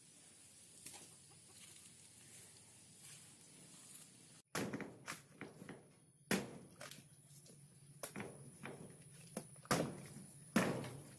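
Machete chopping into the husk of a young green coconut: a string of sharp, irregularly spaced chops that begins a little under halfway through.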